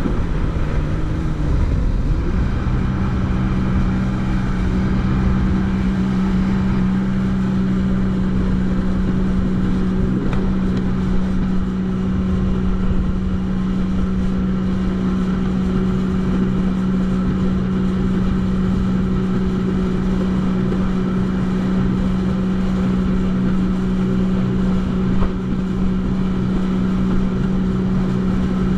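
Jet ski engine running at a steady speed, a constant drone over a rushing noise; its pitch shifts briefly in the first couple of seconds, then holds steady.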